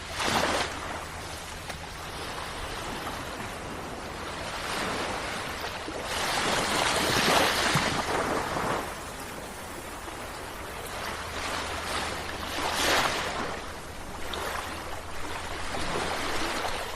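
Sea waves breaking and washing on the shore in repeated surges, the biggest swell a few seconds long near the middle. A faint low steady hum lies underneath.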